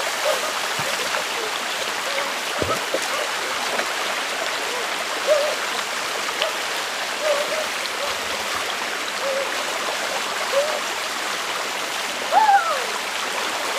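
Water splashing steadily as hands sweep and throw it across a shallow stream, a constant rushing hiss. A brief call that rises and falls in pitch cuts in near the end.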